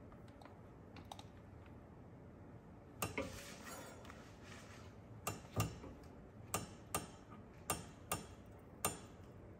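Ratchet head of a digital torque wrench clicking as it is worked back and forth on flywheel bolts during angle tightening. About nine sharp clicks, several in close pairs, come after about three quiet seconds.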